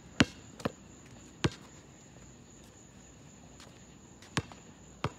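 Basketball bouncing on an asphalt court: five sharp single bounces, three within the first second and a half, the first the loudest, then two more near the end.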